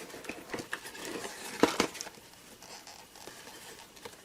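Handling noises from a plastic pistol box being moved about: a few sharp clicks and knocks with light rustling, the loudest knock about a second and a half in, then quieter.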